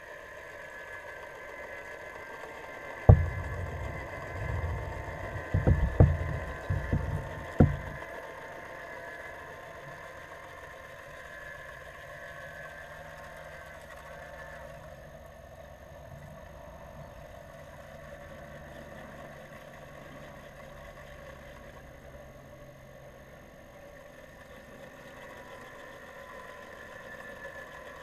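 Muffled underwater sound in a swimming pool: a steady hum made of several held tones. A cluster of heavy low thumps and a few sharp knocks comes from about three to eight seconds in.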